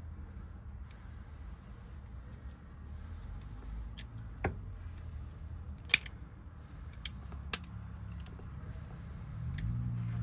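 Scattered sharp clicks from small metal lock parts and tools being handled at the bench as Honda door lock cylinders are worked on, about half a dozen, the loudest about 6 s in, over a low steady hum. Near the end a low droning tone sets in and rises slightly.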